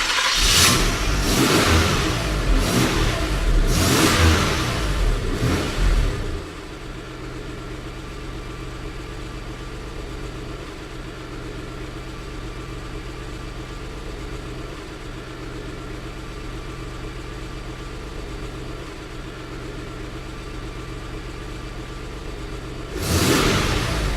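Car engine revved several times in quick succession, then settling about six seconds in to a steady idle. It is revved again near the end.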